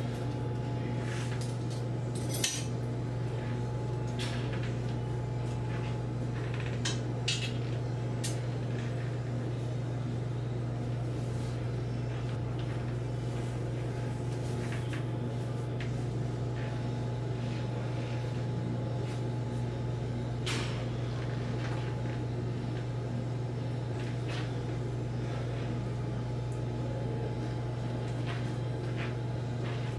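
Steady low hum with light metallic clinks and knocks scattered through it, the sharpest about two and a half seconds in.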